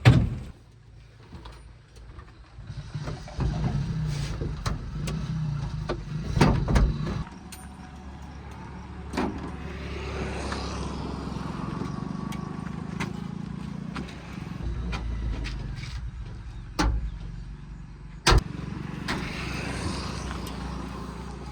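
Heavy diesel earth-moving machinery running, its engine note swelling and easing under changing load, with a few sharp knocks, the loudest near the end.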